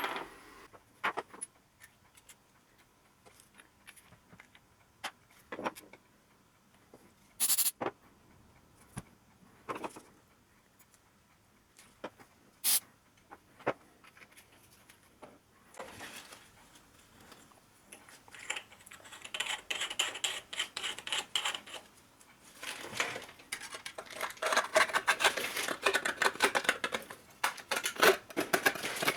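Scattered metallic clinks and knocks of small metal workshop parts being handled, then from about 18 s in a long busy stretch of rapid clicking and rattling.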